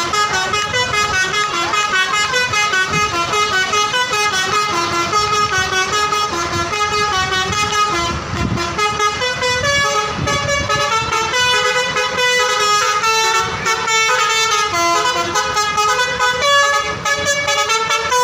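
Bus telolet horns playing their multi-note melodies without a break. The notes step up and down quickly, with more than one horn tune sounding at once as the buses answer each other.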